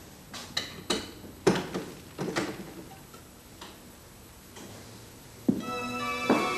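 Door lock and handle clicking and rattling in irregular, separate clicks, then a thud about five and a half seconds in as music begins.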